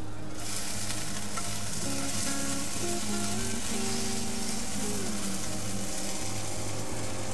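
Hash browns sizzling in a GreenPan Valencia non-stick frying pan on a portable gas stove while being turned and stirred with a spatula. The sizzle starts suddenly about half a second in and holds steady after that.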